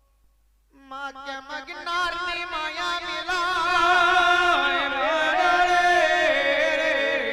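Folk music starts about a second in, after a brief silence: a loud, ornamented melody whose pitch wavers and slides.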